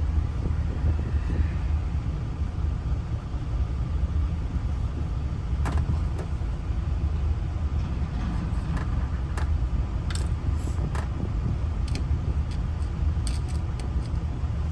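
Steady low rumble of a vehicle engine idling, heard from inside the vehicle. From about six seconds in come scattered light metallic clicks of keys and small lock parts being handled, most of them a few seconds before the end.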